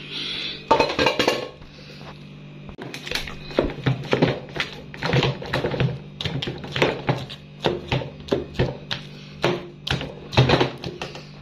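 A wooden spoon mashing boiled potatoes, maize and peas for mukimo in a metal pot, knocking against the pot two or three times a second. There is a short scrape of metal at the start.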